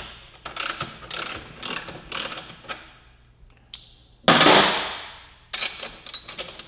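A ratchet wrench with an axle socket working the rear axle nut of a motorcycle, its pawl clicking in short bursts. About four seconds in there is one loud sudden sound that dies away over about a second. Faster, denser clicking follows.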